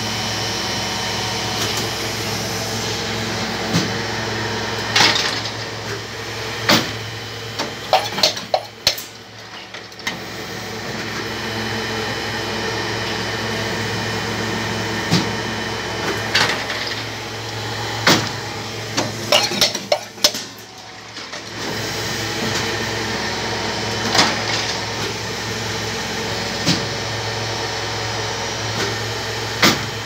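Molding machine for shoe buckles running through its cycle: a steady hum, broken by clusters of sharp clanks and knocks as the die moves, repeating about every twelve seconds. The hum dips briefly twice, about nine and twenty-one seconds in.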